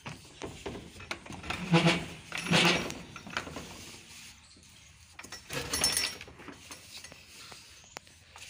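Metal bolt and latch on a wooden double door clinking and scraping as it is unfastened and the door swung open, with two loud events about two seconds in and another near six seconds.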